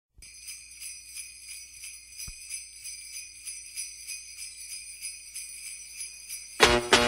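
Sleigh bells jingling in a steady rhythm, bright and thin. Near the end, louder full-range music comes in.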